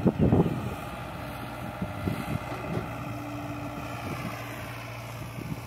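Diesel engines of the farm tractors and the tracked excavator idling steadily. In the first half-second a last rattle of soil and clods drops into the tractor's steel trolley.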